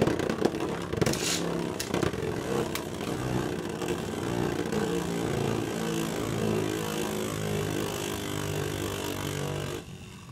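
A Revive Phoenix 10 Friction Beyblade spinning on the plastic floor of a Beyblade stadium, with a steady whirring and scraping as it travels around the bowl. It turns much quieter near the end, when it settles spinning in the middle.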